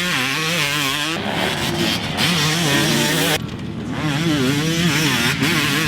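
2006 Kawasaki KX250's single-cylinder two-stroke engine being ridden, its pitch rising and falling repeatedly as the throttle is worked. The sound breaks off and picks up again abruptly about a second in and again a little past three seconds.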